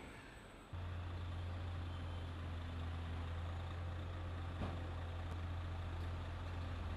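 A steady, even low hum of machinery that starts abruptly about a second in, with one faint click about two-thirds of the way through.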